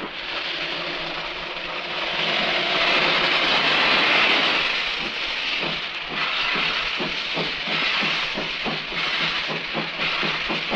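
ELNA steam locomotive, built 1930, starting away. First there is a steady hiss of steam, loudest a few seconds in. About halfway through, a regular beat of exhaust chuffs comes in, about three a second.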